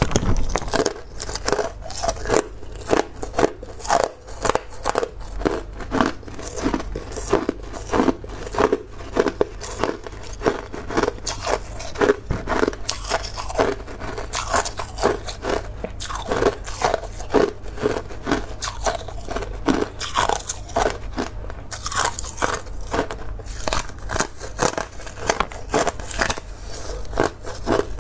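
A person biting and chewing a thin disc of hard ice: a dense, continuous run of sharp cracks and crunches, several a second.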